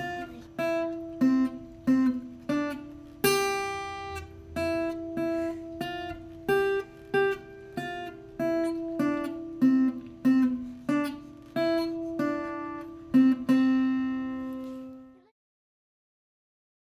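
Acoustic guitar playing a slow picked melody of ringing single notes and a few strummed chords, stopping a couple of seconds before the end.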